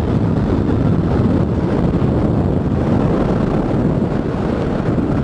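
Honda motorcycle engine running flat out at high road speed, buried under heavy wind rush and buffeting on the handlebar-mounted camera's microphone.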